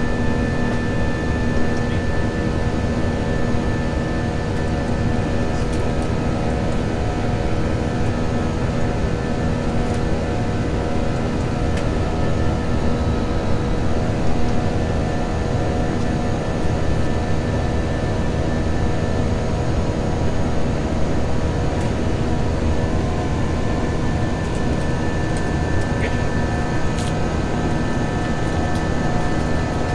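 Steady cabin noise inside an Airbus A321-231 climbing out after takeoff: an even rush of airflow and engine noise, with several steady hum tones running through it.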